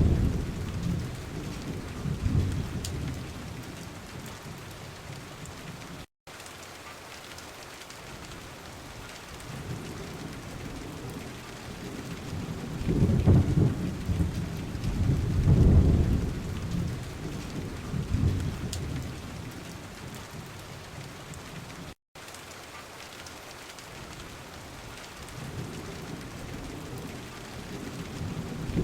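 Steady rain with thunder rolling and rumbling in slow swells, loudest about halfway through. The sound cuts out for an instant twice.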